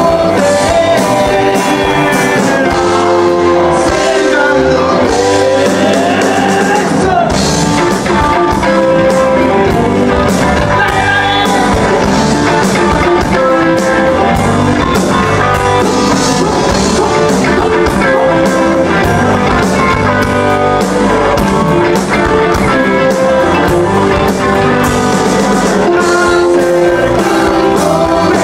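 Rock band playing live: electric guitars, electric bass and drums with a singer, loud and steady.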